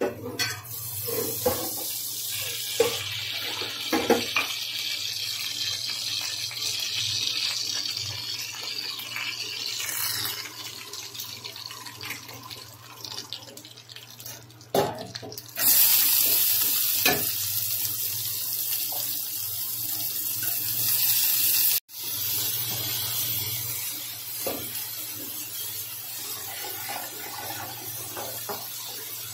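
Cooking oil sizzling in a hot steel pan, with a few sharp clicks and taps in the first few seconds. About halfway in, the sizzle jumps to a loud hiss as chopped onions go into the oil, drops out briefly, then goes on more steadily as the onions fry.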